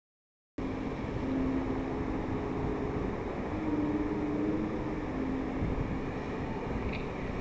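Dead silence for about half a second, then a steady rushing outdoor noise cuts in: the spray of the Bellagio fountain's water jets mixed with wind on the microphone, with a faint low held tone or two underneath.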